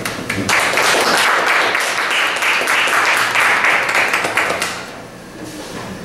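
Audience clapping and applauding, breaking out about half a second in and dying away after about four seconds.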